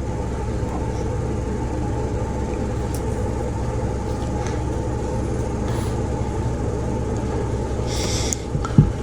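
Battery-powered bird cat toy's small motor running with a steady buzzing drone. There is a brief brighter scratchy noise about eight seconds in.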